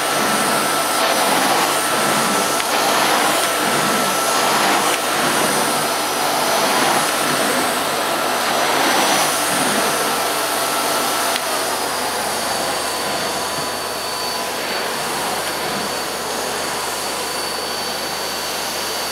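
Hoover Silent Energy bagged cylinder vacuum cleaner running on its turbo setting while the floor nozzle is pushed back and forth over carpet, the sound swelling and dipping with the strokes. About halfway through, the pitch of its whine shifts and it runs a little quieter and steadier.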